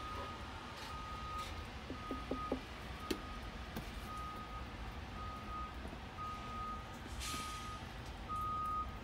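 Dashboard warning beeper of a 2007 IC CE 300 school bus, one steady tone beeping about once a second with the key switched on, before the engine is started.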